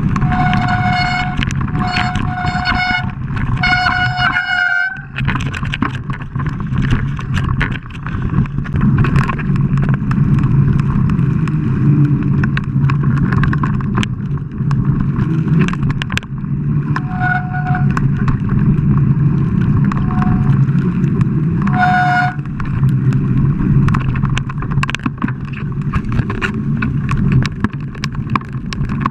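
Mountain bike descending a dirt trail, heard from a helmet camera: a steady rush of wind and tyre rumble, with rattles and knocks over bumps. Disc brakes squeal in short, steady-pitched bursts several times in the first few seconds, and again briefly three times later on.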